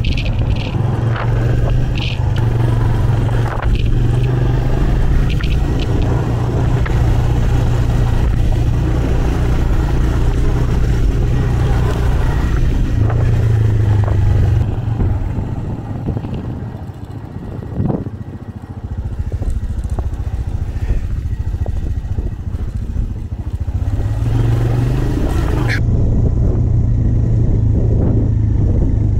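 Quad (ATV) engine running steadily while riding along a sandy dirt track. The engine eases off for a few seconds around the middle, then pulls again.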